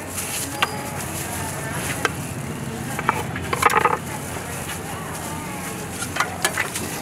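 Papaya being peeled with a knife in quick strokes, with scattered short clicks and scrapes of the blade. A cluster of them comes a little before four seconds in, over steady street background noise.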